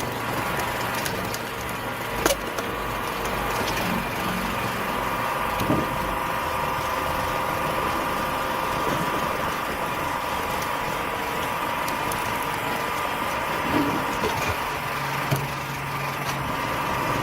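An engine running steadily at a constant speed, with a few sharp knocks about two and six seconds in and a smaller one near fourteen seconds.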